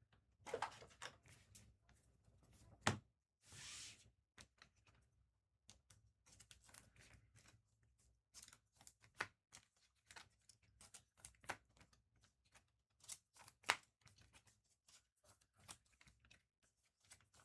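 Faint handling of trading card packs and cards: a short rip of a wrapper a few seconds in, then many light clicks and taps as cards are sorted and flicked through.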